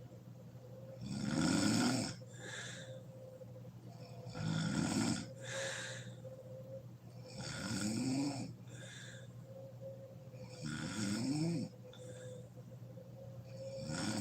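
A woman snoring loudly in her sleep. A rasping snore comes about every three seconds, each followed by a shorter, softer breath.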